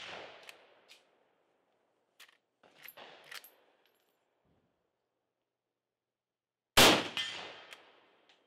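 Lever-action rifle at a range: a few sharp metallic clicks of the action being worked, then one loud rifle shot about seven seconds in that rings out over about a second. The opening second holds the fading echo of a shot fired just before.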